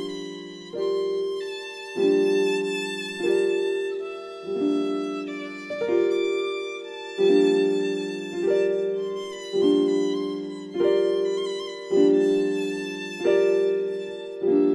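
Background music: a slow instrumental piece of sustained chords, a new chord struck about every second and a quarter, each fading before the next.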